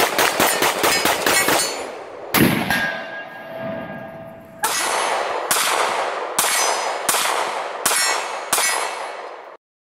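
Gunfire: a rapid string of overlapping 9mm pistol shots, then a single heavier Mosin-Nagant 7.62x54R rifle shot followed by a metallic ringing for about two seconds. Then six evenly spaced Glock 26 pistol shots, about three-quarters of a second apart, stopping abruptly near the end.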